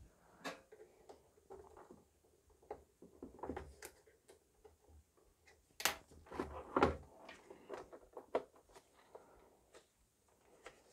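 Scattered small clicks, scrapes and light knocks of a flathead screwdriver prying at the parts of a 3D printer's metal power supply unit and its acrylic cover, with a sharper click about six seconds in and a run of knocks just after.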